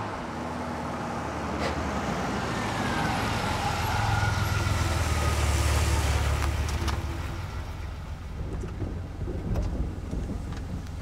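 An old car's engine running as the car drives up and slows, growing louder toward the middle and then easing off, with a faint falling tone as it slows and a few light clicks near the end.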